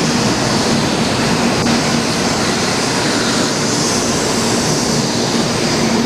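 JR West N700 series 7000 Shinkansen departing the station and running past close by: a loud, steady rush of wheels on rail and air, with a low steady hum underneath.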